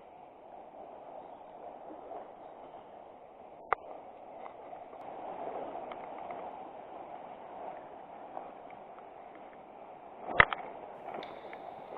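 River water running steadily, with two sharp knocks, one about four seconds in and a louder one near the end.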